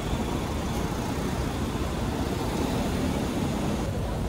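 Steady outdoor street noise, a low rumble like passing traffic, with no distinct events standing out.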